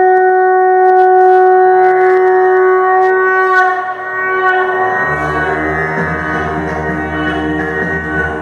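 A single long blown note on a wind instrument, held steady at one pitch and fading about four seconds in. About five seconds in, music with a low sustained drone begins for the dance.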